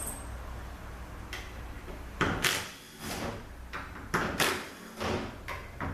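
Sharp metallic clinks and scrapes, several in the second half, from bolts being taken out of a ZF 6HP26 automatic transmission valve body and set down. A low steady hum underneath stops about two seconds in.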